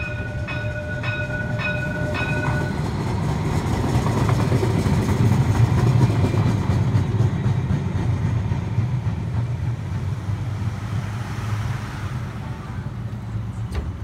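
Cincinnati streetcar's bell ringing quickly, about twice a second, stopping about three seconds in. A low rumble then swells toward the middle and fades.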